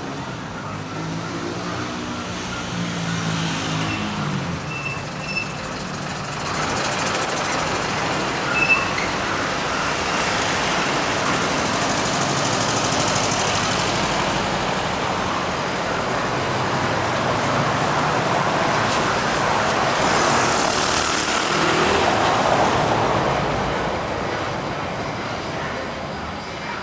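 Road traffic noise, swelling and fading as vehicles pass, with a short knock about nine seconds in.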